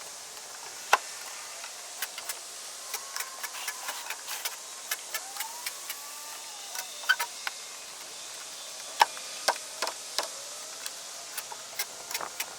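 Irregular sharp knocks and taps of construction work over a steady hiss, two of them much louder, about a second in and about nine seconds in.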